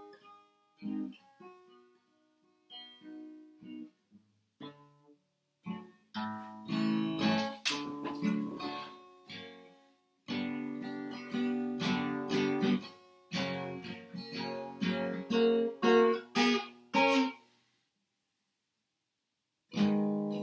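Acoustic guitar played solo: a few quiet picked notes, then fuller strummed chords from about six seconds in. The playing breaks off for about two seconds near the end and starts again.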